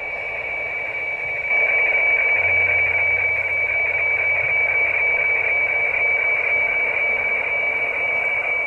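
HF weather fax (radiofax) signal from a shortwave receiver: one steady high tone over shortwave hiss, the tone of a mostly white chart being sent. It gets louder about a second and a half in.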